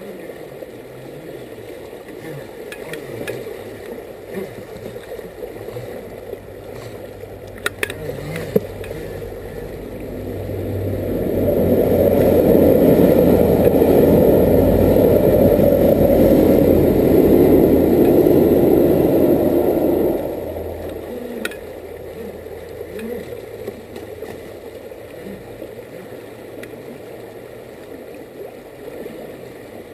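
Creek rapids rushing steadily over rocks, swelling into a louder rush for about ten seconds in the middle, with a few sharp clicks.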